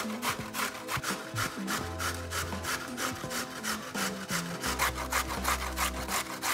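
Rhythmic rasping strokes, about four or five a second, of a vegetable being grated on a grater, over background music with slow held bass notes.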